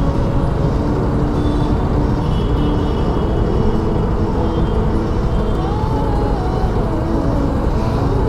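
Street riding on a KTM Duke 200 single-cylinder motorcycle: steady engine, wind and traffic noise, with short steady tones from other vehicles over it and a wavering tone starting about five and a half seconds in.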